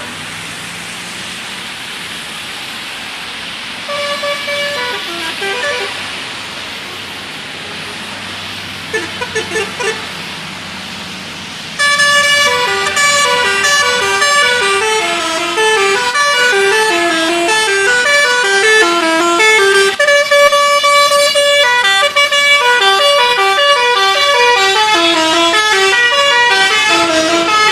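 Bus 'telolet' horn, a multi-tone horn playing a quick melodic tune of stepping notes, over steady vehicle noise. It sounds briefly about four and nine seconds in, then much louder and without a break from about twelve seconds on.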